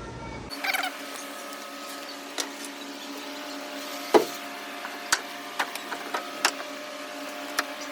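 Scattered knocks and clicks of deck boards being laid and fastened, over a steady mechanical hum, with one loud knock about four seconds in.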